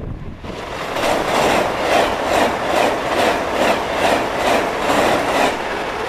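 TGV high-speed train passing close by at speed: a loud rush with a regular beat, about two to three a second, as the wheelsets and cars go by. It drops away about five and a half seconds in.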